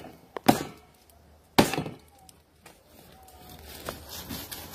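Machete chopping through wild hog ribs on a wooden block: two sharp chops about a second apart, then a rough scraping as the blade saws through the meat and bone from about three seconds in.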